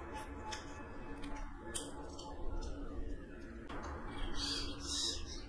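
Close-miked eating with the hand, rice and chicken liver curry: wet chewing and lip smacks, with a run of short squishy clicks in the second half, over a steady low hum.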